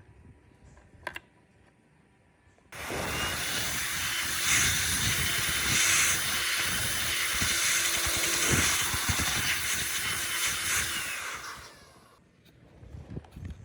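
A handheld electric blower runs in a loud rush of air for about nine seconds. It starts suddenly about three seconds in, and its motor whine winds down as it fades out near the end.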